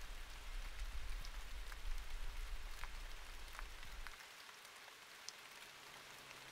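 Quiet outdoor ambience: a faint even hiss with a few scattered small ticks, over a low rumble that cuts off about four seconds in.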